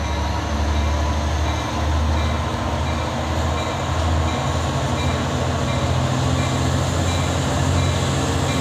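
Diesel locomotive engine running at a standstill: a steady low drone with a throbbing beat, its low note growing stronger about halfway through.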